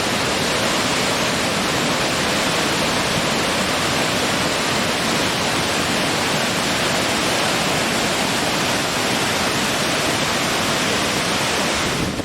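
Waterfall: water falling and rushing in a loud, steady, even hiss-like rush.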